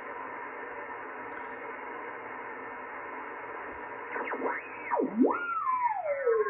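Band noise hiss from a Henry Tempo One transceiver's receiver on sideband. About four seconds in come whistling tones that swoop up and down in pitch, ending in a long falling whistle.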